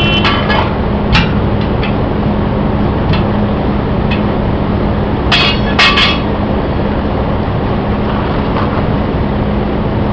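Steel tire iron clinking and clanking against a steel truck wheel rim as a truck tire is levered off by hand: a few sharp metallic strikes with a brief ring, one about a second in, another about three seconds in, and two close together around five and a half and six seconds in. Under them runs a steady hum and noise.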